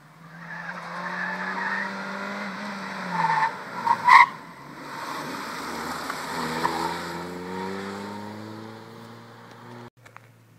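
Red Nissan Primera driven hard: the engine revs as the car comes in, drops in pitch as the driver lifts, then the tyres squeal sharply on the concrete about three and a half to four seconds in as the car slides through the turn. The engine then rises in pitch again as it accelerates away, fading, and the sound cuts off suddenly near the end.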